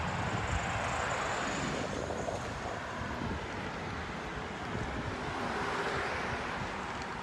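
Gusty storm wind buffeting the phone's microphone, with road traffic passing; the tyre noise swells twice.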